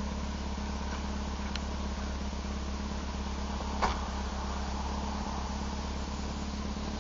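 Alfa Romeo 33 engine idling steadily at the exhaust, with one short knock about four seconds in.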